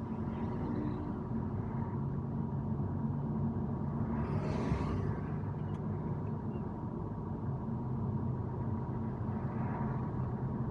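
A car driving on a city street, heard from inside the cabin: a steady low rumble of engine and road noise, with a rush of noise swelling and fading about halfway through.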